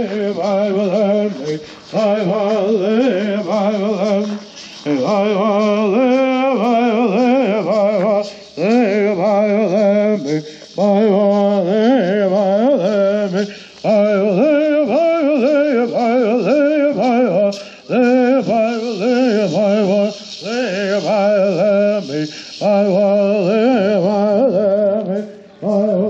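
Male voices chanting a Hualapai bird song in short repeated phrases with wavering pitch, broken by brief pauses.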